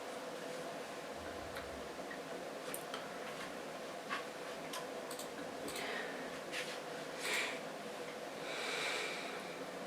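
Quiet room tone with faint scattered clicks and a few short breathy hisses, typical of a person's breathing and mouth noises; no burp is heard.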